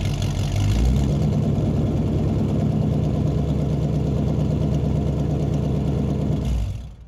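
Engine idling steadily, with a brief swell about a second in, fading out near the end.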